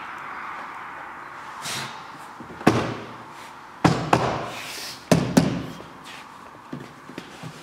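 Plastic door trim panel of an Audi A4 B7 being hung on the top of the door and knocked into place, its retaining clips going home. There are five sharp knocks in about three seconds, then a few lighter taps near the end.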